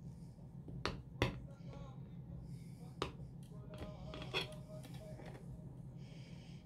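A knife clicking against a plate as a slice of cake is cut: a handful of sharp clicks, the loudest just over a second in, over a steady low hum.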